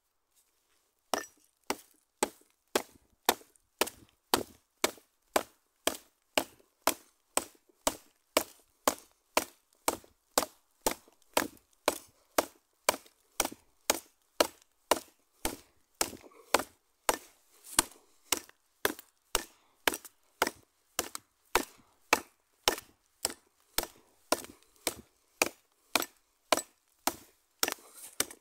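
Tomahawk chopping into a green branch: a long, steady run of sharp wood-on-steel blows, about two a second, starting about a second in.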